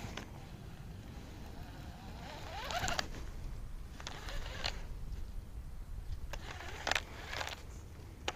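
Fishing reel whirring in several short bursts, a rising whir about three seconds in and shorter ones later, over a low steady rumble.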